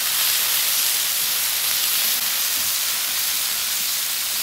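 Sliced bell peppers, onions and cherry tomatoes sizzling steadily alongside two ribeye steaks on a hot steel flat top griddle, a continuous even hiss of food frying in oil.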